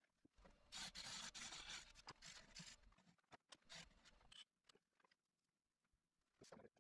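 Hands rustling and scraping against a turned wooden bowl on a stopped lathe and the wood shavings around it, for about two seconds, then a few faint clicks and taps.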